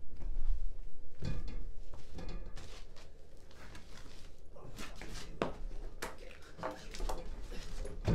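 Irregular knocks, scrapes and creaks of a heavy timber beam being hauled up through a floor opening on ropes.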